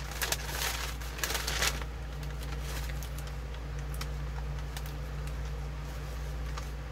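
Parchment paper crinkling and rustling as the sheet is lifted and turned for about the first two seconds. After that come a few faint small clicks and taps of gloved fingers working a small metal eye hook, over a steady low hum.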